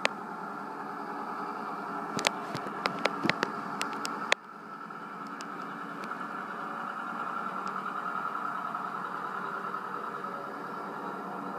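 Farm tractor engines running as tractors drive past on a road, heard as a recording played through a television's speaker. A run of sharp clicks sits over the engine sound in the first few seconds; about four seconds in the sound drops suddenly, then builds back to a steady engine hum.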